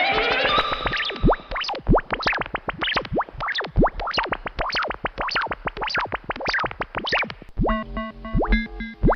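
Synthesized sci-fi UFO sound effect: a rapid string of electronic zaps sweeping in pitch, several a second. About 7.5 seconds in it changes to a stepped, bleeping electronic tone pattern over a steady low hum.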